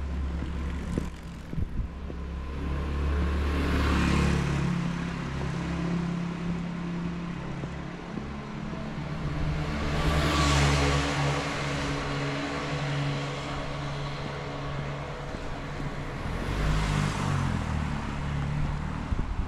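Cars passing one after another on a street, three of them, each swelling and fading away, the loudest about halfway through. A few footsteps tap near the start.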